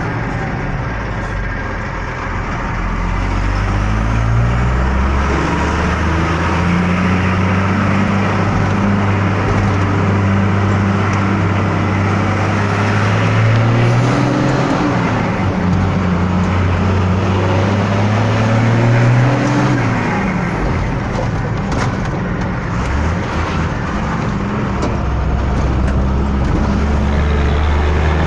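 Volkswagen truck's diesel engine pulling away and accelerating, its pitch climbing in each gear and dropping at two gear changes, then running steadily.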